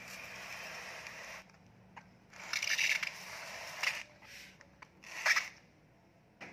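Hands rubbing and rustling through the leaves and branches of a bonsai fig and its plastic tie string, in a few scraping bursts with the loudest about halfway through.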